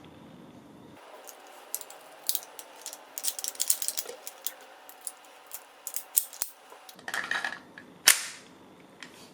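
Metal parts of a 1911 A1 CO2 gas blowback airsoft pistol clicking and clacking as the pistol is put back together, many quick sharp clicks in a row. About eight seconds in there is one louder sharp metallic clack.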